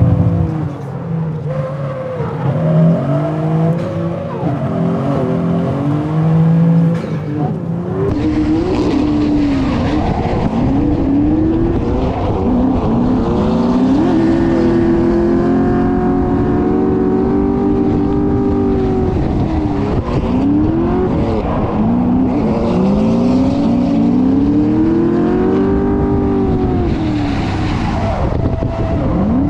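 Cars drifting on track: engines revving up and down in repeated rises and falls of pitch over tire squeal and the hiss of spinning tires. For about the first eight seconds the engine is heard from inside a car's cabin, heavy and low; after that it is heard from a chase car following the drifting BMW.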